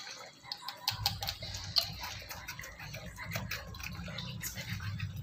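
Wooden spatula stirring and scraping a thick, bubbling cornflour and pomegranate mixture in a kadai, with many irregular small ticks and pops. A steady low rumble starts about a second in.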